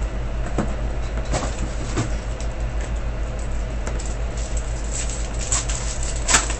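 Foil trading-card packs crinkling as they are handled, with a sharper rip near the end as a pack is torn open, over a steady low hum.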